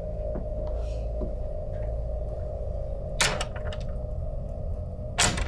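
A steady low hum under two sharp knocks about two seconds apart.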